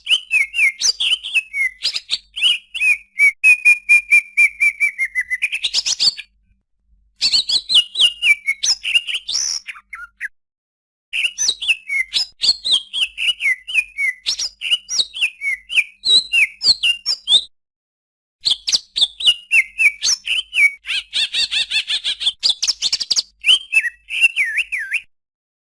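Cucak ijo (green leafbird) singing in fast runs of sharp, whistled notes, many sliding down in pitch, with one held whistle. It comes in four bursts broken by short silences.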